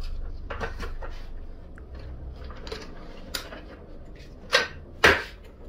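Cosco Shifter folding hand truck's steel frame and plastic latch mechanism being pulled into cart mode: a few scattered clicks and knocks, the loudest near the end as the handle locks into place.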